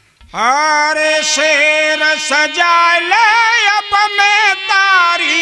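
A man's voice singing a long, drawn-out, ornamented melodic phrase of a Holi folk song to harmonium accompaniment, starting about a third of a second in, with no drumming.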